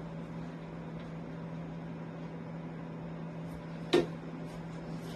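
A single sharp knock about four seconds in as a red plastic dog bowl, nosed and pawed by a puppy, bumps on a vinyl tile floor, over a steady low hum.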